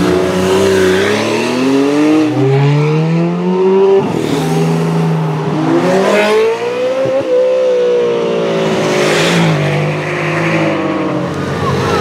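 Sports car engines accelerating away one after another. Their pitch rises in two long climbs, then eases down toward the end.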